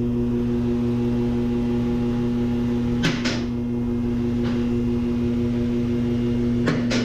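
Steady hum with a few evenly spaced tones, broken by a quick double click about three seconds in and another near the end.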